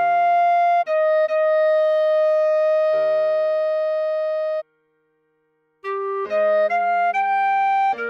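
Clarinet playing a slow melody, a short high note then a long held lower note, over sustained piano chords. The music stops for about a second past the middle, then comes back with a run of shorter clarinet notes over a new chord.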